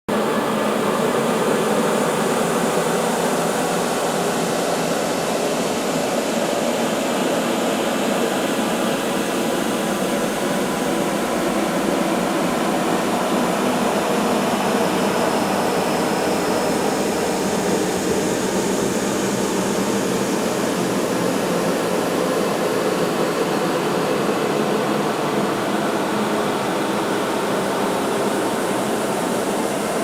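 Crowd chatter sound effect stretched many times over with Paulstretch, the voices smeared into a steady, droning wash with no words or breaks.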